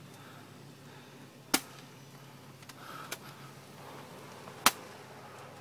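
Airsoft guns firing: two sharp, loud shots about three seconds apart, with a fainter click between them.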